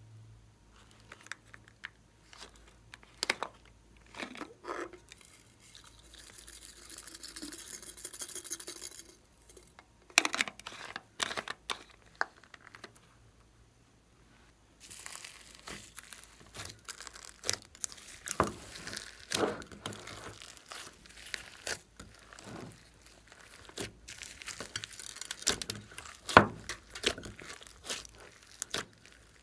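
Hands handling a plastic slime container with sharp clicks and knocks, then thick slime being tipped out and pressed onto a tray of foam beads and plastic pieces, with dense crackling and crinkling from about halfway through.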